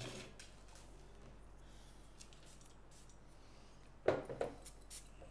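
Quiet room tone, then about four seconds in a few short spurts from a perfume atomiser spraying onto a paper blotter strip.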